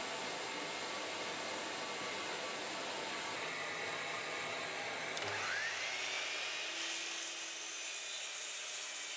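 Sliding compound mitre saw motor spinning up about five seconds in, its whine rising in pitch and then holding steady as the blade runs, over a steady hiss.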